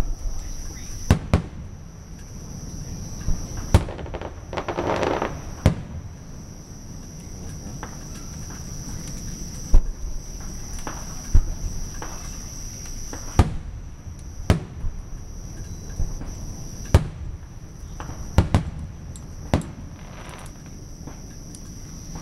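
Aerial fireworks shells bursting in a display: a dozen or more sharp bangs at irregular intervals, sometimes two in quick succession.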